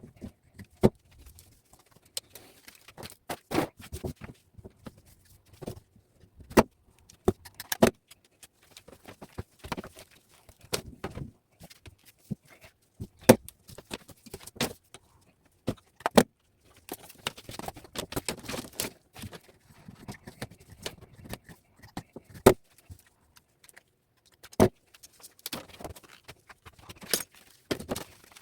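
Scrap copper wire and small metal pieces being handled and sorted: irregular sharp clicks and clinks with short stretches of rustling.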